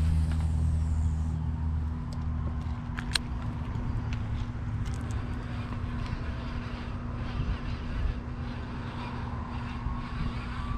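Steady low engine hum, loudest over the first two seconds or so and then fainter, with a few faint clicks.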